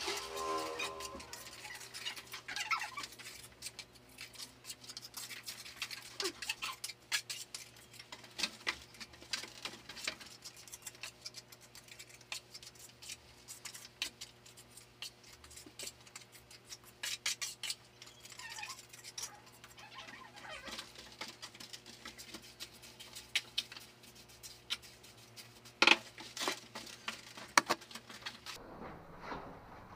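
Irregular scraping and tapping of hand tools, typical of plastering work, over a steady low hum that cuts off near the end. A short pitched sound is heard right at the start.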